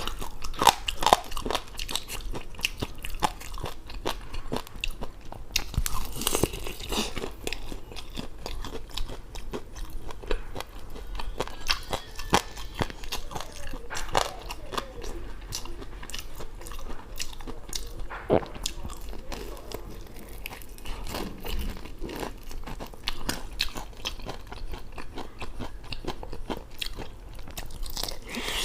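Close-miked biting and chewing of crispy Korean fried chicken: a continuous run of crackly crunches, with louder bites now and then.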